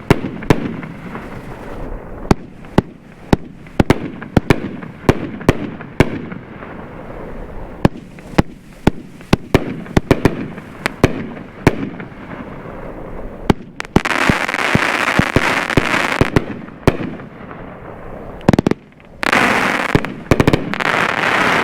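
25-shot, 500 g consumer firework cake firing: a steady string of sharp bangs, often two or more a second, from the shots lifting and breaking. Two stretches of dense crackling hiss stand out, one about 14 s in and lasting a couple of seconds, another near the end.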